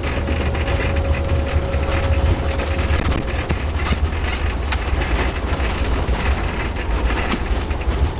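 Airbus A330 rolling out on the runway after touchdown, heard in the cockpit: a steady low rumble of wheels and engines, with frequent small knocks and rattles. A thin steady whine fades out about three seconds in.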